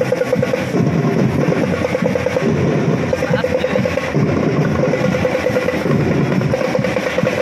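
Parade drums playing a steady, fast marching rhythm for the dancers.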